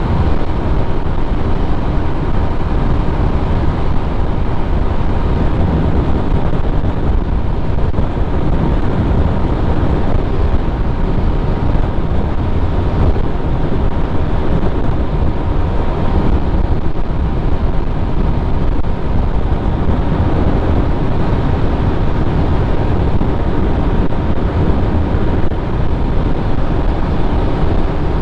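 Steady wind rush on the microphone mixed with a motor scooter's engine held at about 110 km/h top speed, with a faint constant whine over the low rumble.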